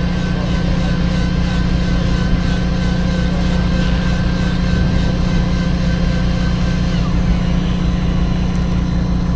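Fishing boat's engine running steadily, a constant low drone with a thin steady whine above it that slides down and fades out about seven seconds in.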